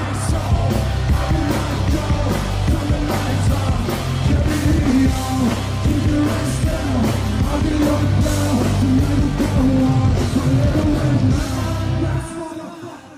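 Loud rock music with heavy bass and a steady drum beat, fading out about a second before the end.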